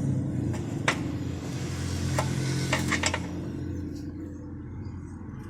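Wrench clinking against the nut and metal of a car's front control arm as it is fitted and tried, to check whether the arm is loose: a few sharp metallic clicks, one about a second in and a quick cluster near the middle, over a steady low hum.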